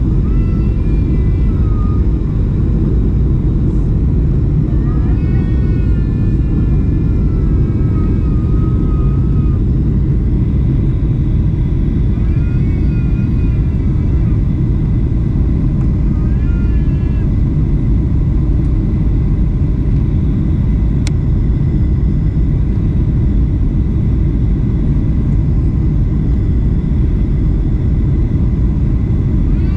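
Steady low roar inside a Boeing 737 cabin on approach: engine and airflow noise over the extended flaps. Faint voices of passengers talking come through now and then, and there is a single sharp click about two-thirds of the way through.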